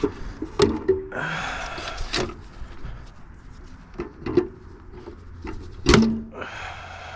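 Hand work on scrap air-conditioner parts and wiring: a handful of sharp knocks and clicks, the loudest about six seconds in, with scraping and rustling in between.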